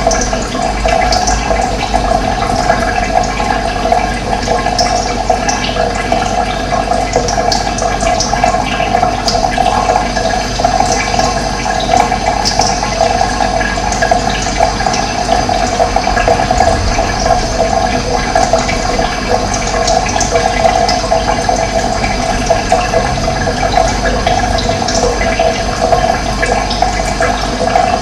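Running water flowing steadily, a continuous rushing and gurgling stream.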